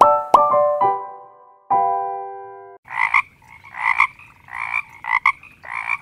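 A short keyboard melody with a couple of sharp clicks, then, from about three seconds in, a frog croaking: a run of about five short croaks a little over half a second apart.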